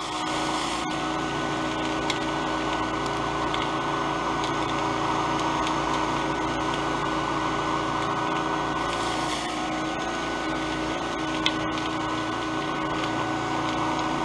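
Professional cotton candy machine running, its motor spinning the heated sugar head with a steady, even whir and hum as sugar is spun into floss. There are a few faint short clicks, one near the end.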